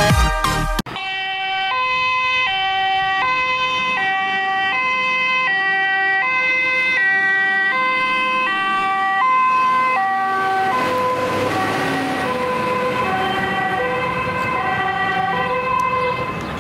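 Siren of a MAN fire engine on an emergency run: a two-tone siren alternating steadily between a high and a low note, which starts suddenly about a second in. About ten seconds in, the rumble of the truck's engine and tyres swells under the siren as it drives past.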